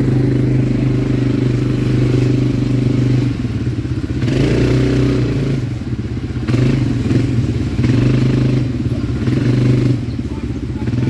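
ATV engine idling close by, then revved in short throttle blips several times from about four seconds in, the pitch rising and falling with each.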